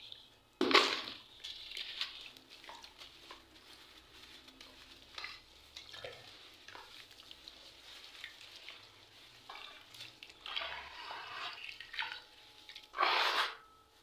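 Hands crumbling soft grey chunks in a bucket of water: splashing and sloshing, with a loud splash about a second in, a busier stretch later on and another loud splash near the end.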